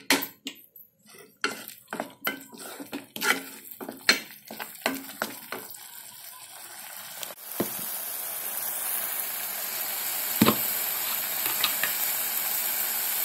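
Wooden spoon scraping and tapping against a non-stick kadhai in quick, uneven strokes as a thick onion-tomato masala with cream is sautéed. About seven and a half seconds in the strokes stop and a steady sizzle of the masala frying in oil takes over, with a single knock a few seconds later.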